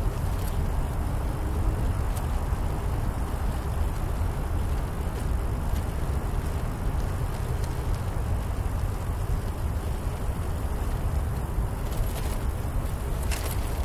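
Steady low rumble of wind buffeting a bicycle-mounted camera's microphone, with tyre noise from riding along the trail. A few sharp clicks and rattles near the end.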